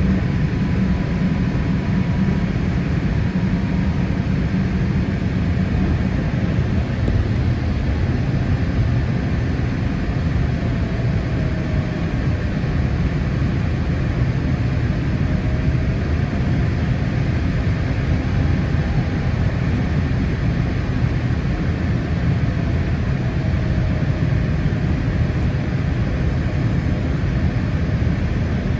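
Steady cabin noise inside a Boeing 787-8 airliner descending to land: a continuous low roar of engines and airflow, with faint whining tones that drift slightly in pitch.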